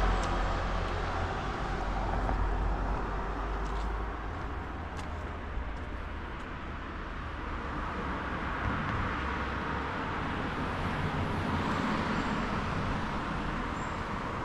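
Road traffic: cars passing, their tyre and engine noise swelling and fading, loudest at the start and swelling again past the middle.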